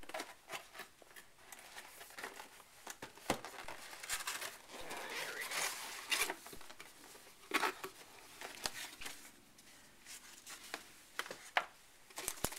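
A cardboard netbook box being opened and unpacked by hand: flaps and lid scraping, light knocks and clicks, and bursts of crinkling plastic packaging.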